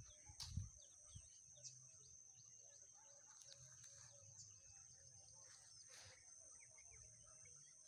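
Faint rural ambience: scattered short bird chirps over a steady high-pitched hum, with a soft low thump about half a second in.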